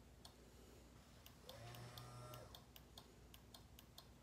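Faint, rapid, irregular clicking from a 1999 Sea-Doo GSX's electrics. About a second and a half in, the bilge pump runs briefly with a low hum that rises and falls in pitch. Pressing start only wakes the gauge cluster and the bilge pump; the engine does not crank.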